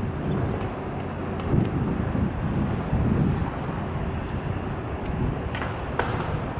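Low, uneven rumble of a powerboat's engine running out on the river, mixed with wind buffeting the microphone. A short knock near the end.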